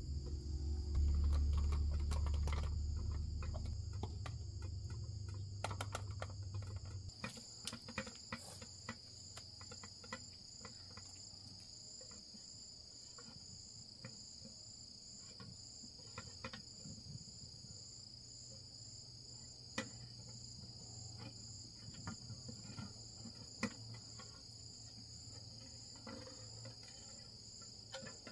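Insects, crickets or similar, trilling steadily at a high pitch. A low rumble runs under them for the first several seconds, then stops, leaving scattered small clicks and snaps.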